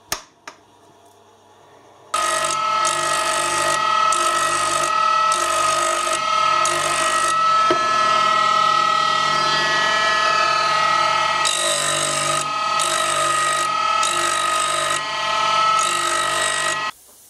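Small grinder running with a steady whine while a high-speed steel lathe tool is ground to a 60-degree thread profile. A grinding hiss comes and goes about once a second as the tool is passed across the wheel. The sound starts abruptly about two seconds in, after a couple of light clicks, and cuts off near the end.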